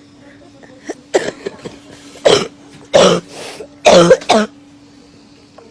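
A person coughing, a run of about five or six short, harsh coughs over some three seconds, the last few coming close together. The cough is presented as the cough of coronavirus (COVID-19).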